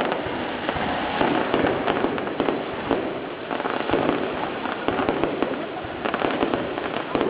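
Fireworks display going off: a dense, continuous run of bangs and crackling pops, several a second.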